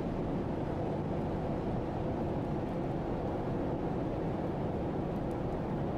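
Steady, even rumble on the open deck of a large car ferry pulling away from its berth: the ship's engines and churning propeller wash, mixed with wind.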